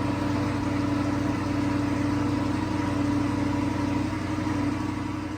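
1961 Pontiac Catalina's V8 engine running steadily at an even pitch, fading out near the end.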